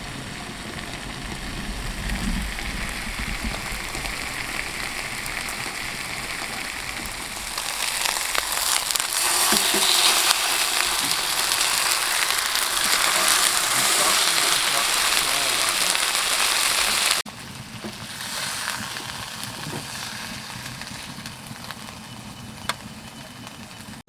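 Pork steaks sizzling in a frying pan on a small camp stove, a steady crackling hiss. It grows louder about eight seconds in, then drops suddenly to a quieter sizzle after about seventeen seconds.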